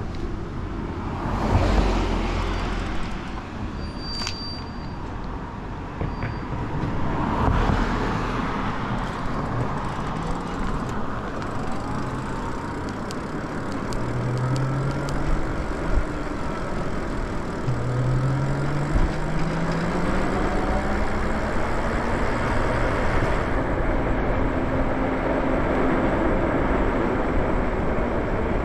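Wind rushing past the microphone and tyre-on-road noise from an e-bike ridden along a street, with traffic passing. A rising whine comes twice around the middle.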